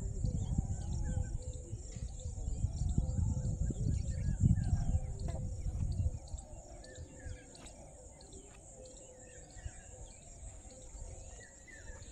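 Outdoor field ambience: small birds chirping in scattered short calls over a steady high-pitched insect drone, with low wind rumble on the microphone that dies down about halfway through.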